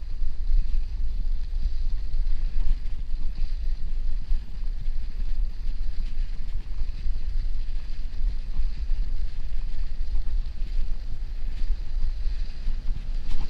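Wind buffeting the microphone on a moving bicycle: a fluctuating low rumble, with an even hiss of the tyres rolling over packed snow.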